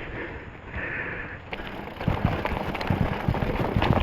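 Specialized Stumpjumper 6Fattie mountain bike rattling and knocking over rocks and roots, the thumps and clatter getting busier from about halfway through.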